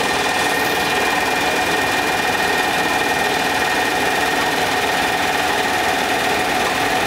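Ice plant's reciprocating refrigeration compressor running steadily: a loud, dense mechanical rattle with a few steady high tones held above it.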